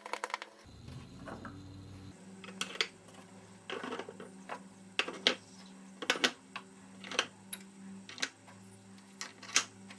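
Small hard items clicking and clacking against a 3D-printed plastic organizer as drill accessories are set into it: about a dozen irregular, sharp clicks.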